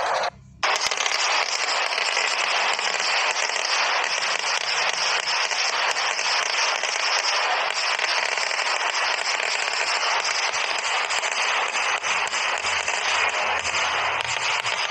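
Fireworks barrage going off: a dense, continuous crackle of rapid firecracker bangs, with a brief cut-out about half a second in.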